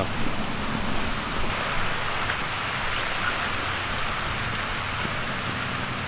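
Heavy rain falling steadily, an even hiss of rain.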